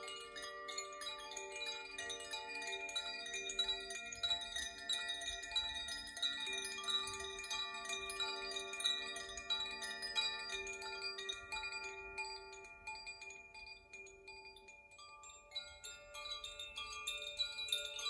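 Koshi and Zaphir chimes swung gently by hand, their clappers striking the tuned metal rods inside: a soft tinkling of many overlapping ringing tones. The strikes thin out for a couple of seconds about three-quarters of the way through, then pick up again.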